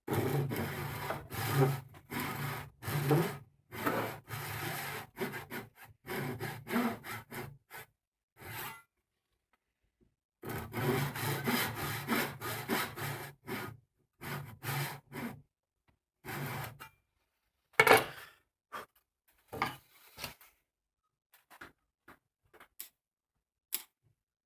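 Hand tool working elm wood in short, rasping back-and-forth strokes, most like hand sawing. The strokes come in two quick runs with a short pause between them, then a few scattered single strokes, one louder near the end.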